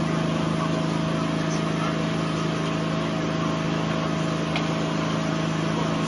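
A steady, engine-like drone with a low hum and a haze of noise, and a faint click about four and a half seconds in.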